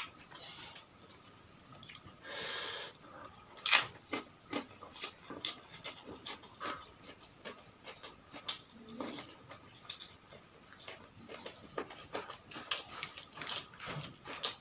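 Close-miked eating sounds: irregular wet chewing and lip-smacking clicks, with one longer, noisier sound a little after two seconds in.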